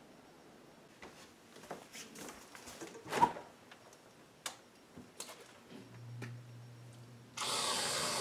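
Scattered clicks and knocks of handling in a kitchen, the loudest about three seconds in. Near the end comes a loud hiss lasting about a second: an aerosol whipped-cream can spraying.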